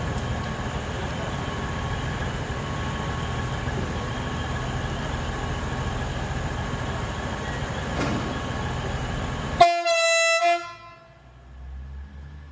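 Train running with a steady rumble, then one horn blast about a second long near the end, cutting off sharply.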